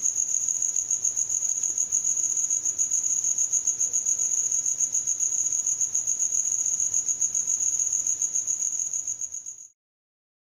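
Cricket chirping: a steady high-pitched trill in quick, even pulses, made by the male rubbing its wings together. It fades and stops about nine and a half seconds in, then silence.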